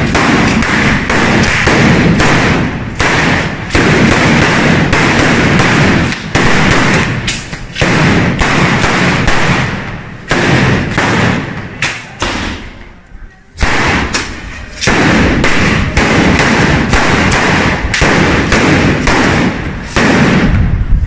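A batteria of firecrackers laid along the ground going off in a rapid, dense string of loud bangs, with a brief lull about twelve seconds in before the bangs start again.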